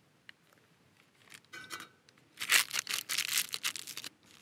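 A small packet being crinkled and torn open by hand: a little rustling, then a loud run of crackling crinkles lasting nearly two seconds.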